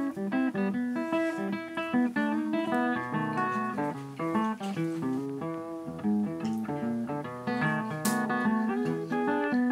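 Background music of plucked acoustic guitar, a quick run of picked notes and chords.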